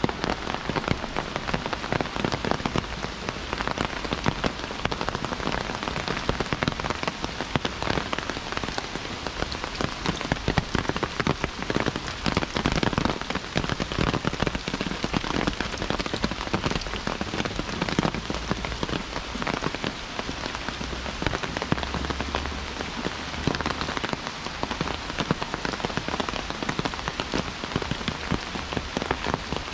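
Steady heavy rain, with a dense spatter of sharp drop strikes close by.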